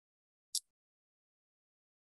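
Near silence, with the audio cut to nothing, broken once by a short high-pitched tick about half a second in.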